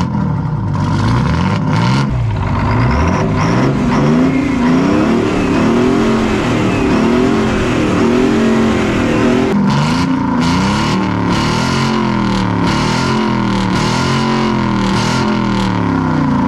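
An old truck's diesel engine running just after being started on ether, revved up and down again and again, about once a second.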